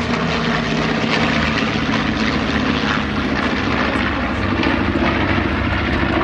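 A formation of World War II piston-engined propeller warbirds flying past, their engines making a steady drone.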